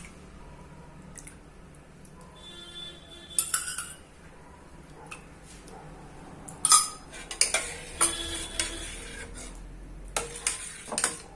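A spoon stirring and scraping in a pot of hot milk that is curdling with vinegar to make paneer: irregular metal clinks and scrapes, the loudest about two-thirds of the way in, with a brief ringing tone near the start.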